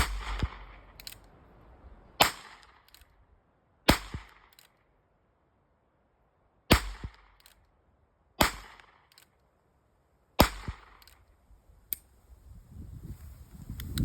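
Ruger .22 revolver fired six times, single shots one and a half to three seconds apart, each sharp crack trailing off in a brief echo.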